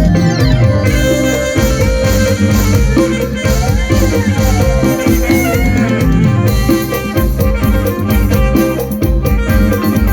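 Live mor lam sing band playing an instrumental passage: a drum kit beat with bass and a plucked string lead.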